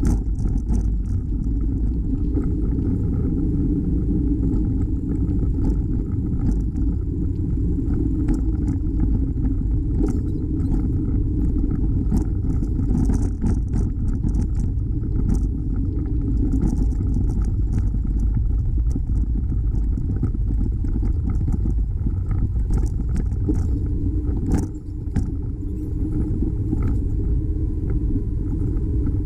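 Steady low rumble of wind and tyre noise from riding a bicycle, with scattered light clicks and rattles; it dips briefly once near the end.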